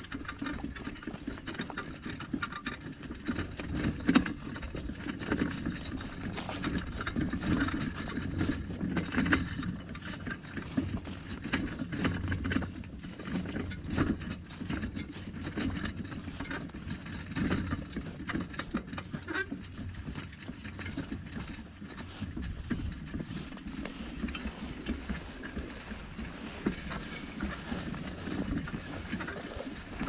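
A vehicle travelling over a rough dirt track: a continuous uneven low rumble with many small rattles and knocks from the bumps.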